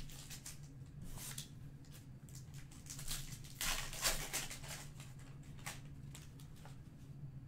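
Foil wrapper of a trading-card pack crinkling and tearing as it is ripped open by hand, in irregular crackles that are loudest about three and a half to four and a half seconds in.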